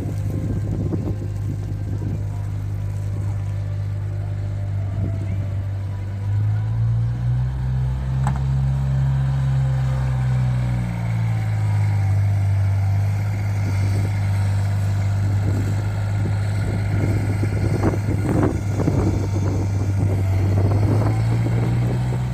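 A vehicle engine's low steady hum in street traffic. Its pitch rises about six seconds in, eases back around eleven seconds, and climbs again near the end, as if the vehicle is speeding up and slowing.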